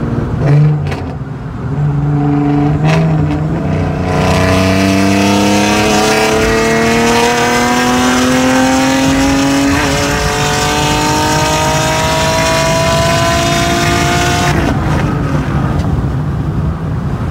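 Infiniti G37S's 3.7-litre VQ37VHR V6 through a straight-pipe exhaust with long-tube headers, heard from inside the cabin. After a couple of brief throttle bursts, it makes a long full-throttle pull in a high gear, the engine note rising steadily for about ten seconds. Near the end the note cuts off as the throttle closes and drops back to a lower cruising drone.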